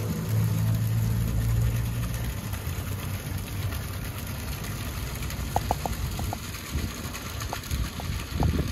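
An engine idling, most likely a moored fishing boat's, with a steady low hum that turns into a rougher low rumble after about two seconds. A few short, high clicks come in over it later on.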